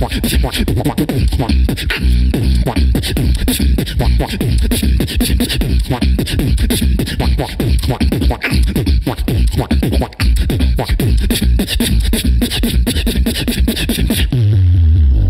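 Human beatboxing into a handheld microphone: a fast run of clicking snares and hi-hats over heavy bass kicks, ending in a held low bass tone that slides down in pitch near the end.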